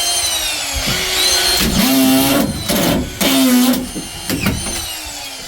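Screw gun driving screws into a plasterboard ceiling sheet: the motor spins up and winds down in several short runs, with two longer runs about two and three seconds in.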